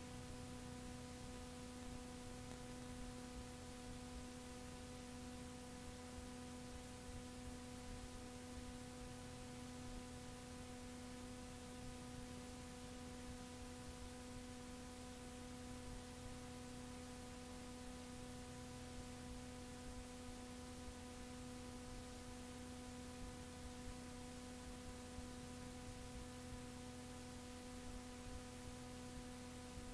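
Faint tape hiss with a steady electrical hum, unchanging throughout: a blank stretch of cassette tape after the recorded material.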